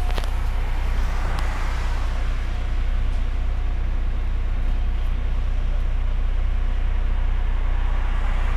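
Diesel engine of a MAZ-105 city bus idling, a steady low rumble heard inside the passenger cabin while the bus stands at a red signal.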